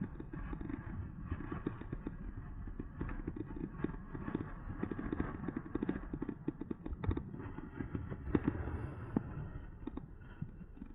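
Riding noise from an e-bike on rough ground: a steady low rumble of wind and tyres on the mounted camera's microphone, with irregular rattles and knocks from the bike and mount jolting over bumps.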